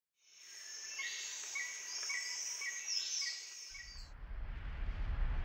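Tropical nature ambience fades in: a high insect drone with bird chirps repeating about every half second. About four seconds in it cuts off and a deep, steady rumble takes over.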